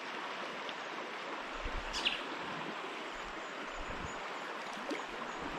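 River water running steadily, a constant rush, with one brief high chirp from a small bird about two seconds in.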